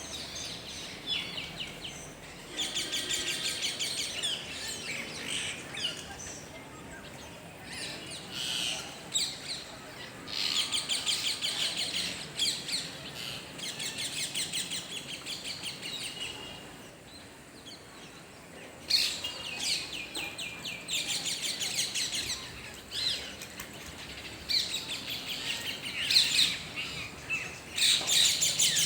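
A flock of parakeets calling in the tree: shrill, rapidly repeated chattering calls that come in bouts of a few seconds, four or five times, with quieter pauses between.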